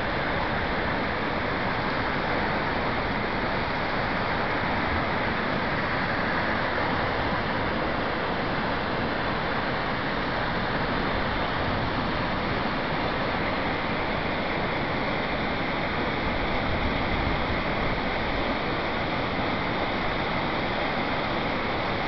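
Swollen flood water pouring over a river weir: a steady rush of water churning into white water below the crest.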